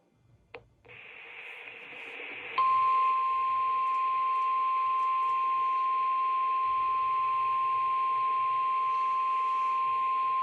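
NOAA Weather Radio receiver picking up the station: a click, then radio static, then about two and a half seconds in the steady single-pitch 1050 Hz Warning Alarm Tone starts and holds, sounded as a test of the weather radio warning alarm.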